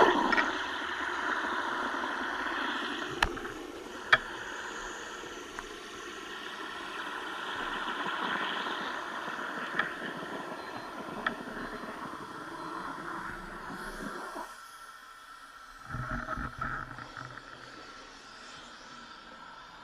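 Steady rushing water noise heard through an underwater camera housing during a freedive, with a few sharp clicks. It drops away about fourteen seconds in, and a brief louder burst follows a little later.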